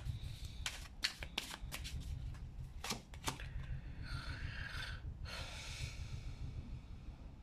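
Tarot cards being shuffled by hand: a quick run of sharp card slaps and flicks through the first three seconds or so, then a softer sliding rustle of the cards. A steady low hum runs underneath.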